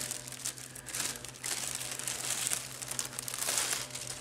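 Plastic packaging crinkling and rustling in uneven swells as a pack of two fleece baby sleepers is opened and the sleepers are pulled out.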